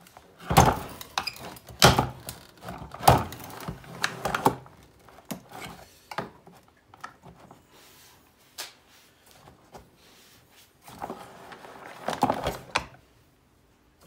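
Hollow knocks and clatter from a plastic vacuum cleaner body being handled and turned over on a workbench, with a screwdriver tapping the plastic: three sharp knocks in the first few seconds, a few light ticks, then a burst of rattling knocks near the end.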